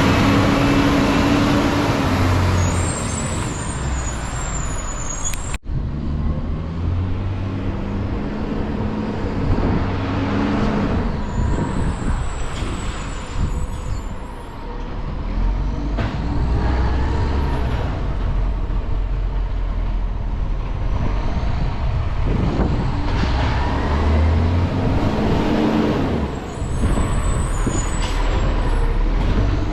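Garbage truck engine running and revving up and down under load, with short high-pitched squeals now and then.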